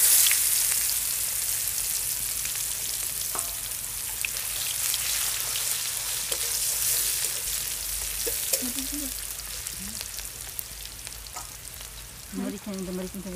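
A handful of chopped ingredients tipped into hot oil in an aluminium wok, sizzling loudly at once and then settling into a steady, slowly fading frying hiss as it is stirred with a spatula.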